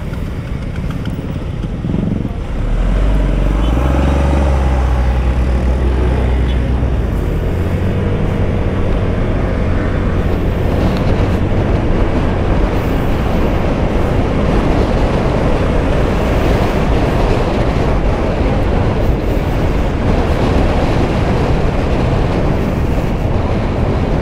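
Motorcycle riding in traffic. Its engine pulls harder about two and a half seconds in, then settles into steady riding noise with an even rush of wind and road noise.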